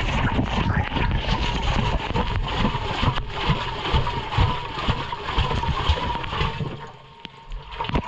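Water and wet laundry sloshing and splashing inside a front-loading washing machine's drum as it tumbles, heard from a GoPro tumbling along inside the drum, with a faint steady whine underneath. The churning briefly drops off about seven seconds in.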